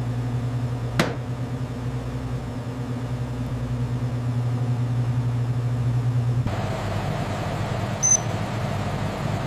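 Steady low machinery hum of factory equipment, changing abruptly to a different hum about six and a half seconds in, with a sharp click about a second in and a brief high beep near the end.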